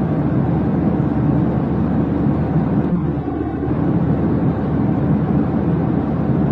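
Steady low rumbling noise of a jet airliner cabin in cruise flight: engine and airflow noise, without a break.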